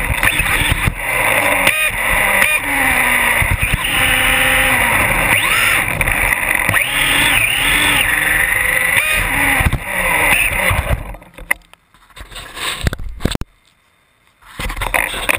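Novak Ballistic 8.5-turn brushless motor in a Losi XXX 2WD RC buggy whining up and down in pitch as the car accelerates and slows, along with tyre and road noise, heard from a camera mounted on the chassis. The driving stops about eleven seconds in. Near the end there are a few short scrapes and knocks as a hand reaches for the car.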